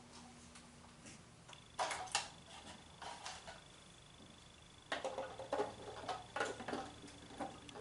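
Scattered clicks, taps and light rattles of small objects being handled, busiest about two seconds in and again over the last three seconds, over a faint steady high-pitched whine.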